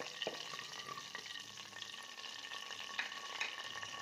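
Cumin seeds and whole spices sizzling in hot oil in a metal pot, stirred with a wooden spatula that scrapes and knocks against the pan a few times in the first second or so.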